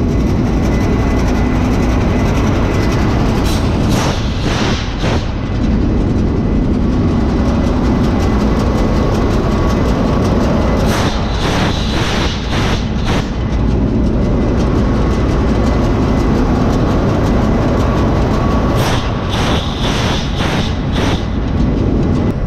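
Steady drone of a ship's running main diesel engine. Three times, a cylinder's indicator cock is opened and blows out in a run of sharp puffs, about two a second, one with each firing stroke.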